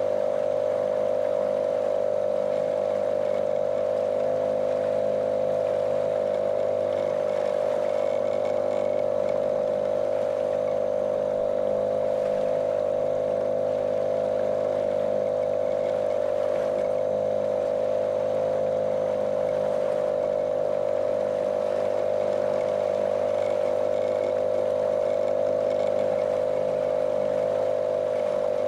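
Small motorboat's outboard motor running at a steady speed, a monotonous drone with a strong steady pitch, over the wash of water against the hull.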